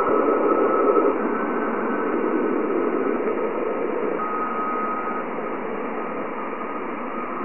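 Steady static-like hiss with a faint high tone held through it, slowly getting quieter.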